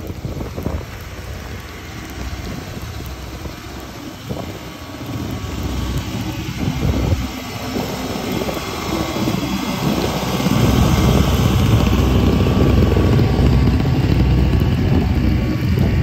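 Blizzard wind buffeting the microphone: a loud, steady low rumble of wind noise that grows stronger about ten seconds in.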